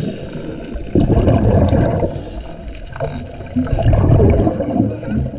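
Underwater gurgling rumble of a scuba diver's exhaled bubbles, starting loudly about a second in. Over it, near the end, several high Hawaiian spinner dolphin whistles rise and fall in quick curling glides.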